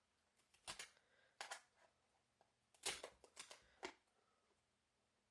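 A razor blade slicing through an adhesive printed sticker: a handful of short, sharp cutting strokes, quiet overall.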